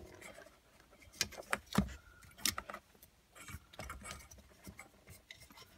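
Irregular clicks, taps and light rattles of car interior parts being handled: wiring harness connectors and plastic clips knocking against the metal dashboard frame as a piece is worked loose. The sharpest knocks come in a cluster between about one and two and a half seconds in.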